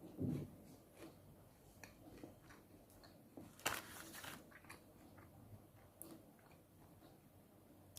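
KitKat packaging being handled, making soft scattered clicks and rustles, with a low thump right at the start and one sharp crackle about halfway through.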